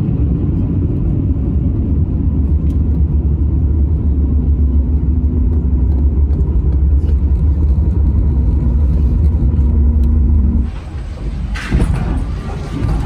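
Steady low rumble inside the cabin of a Boeing 737 MAX on the ground after landing, from the engines and the rolling gear, with a faint held hum. It cuts off abruptly near the end, giving way to a thinner, brighter background noise with some clatter.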